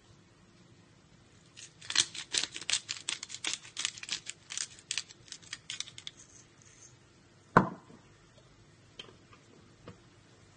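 Pepper grinder cracking black pepper: a run of quick, irregular crunching clicks lasting about four seconds, then a single loud knock a moment after they stop.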